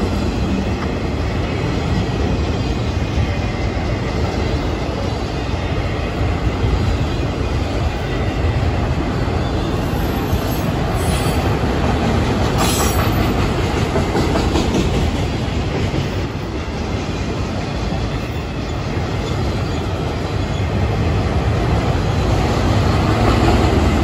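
Freight train autorack cars rolling steadily past, their steel wheels rumbling and clattering over the rail joints. A couple of short high-pitched wheel squeals come about ten to thirteen seconds in.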